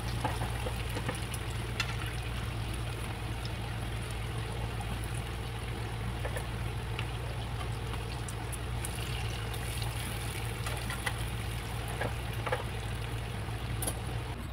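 Urad dal vadas deep-frying in hot oil: a steady sizzle with scattered crackles and clicks, over a steady low hum.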